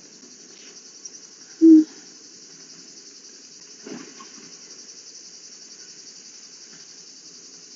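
Steady, faint high-pitched chirring of insects such as crickets in summer greenery, with one short hummed 'mm' from a woman's voice about two seconds in.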